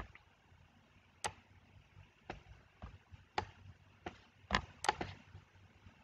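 Computer mouse clicking, about eight short sharp clicks at irregular intervals, over a faint low hum.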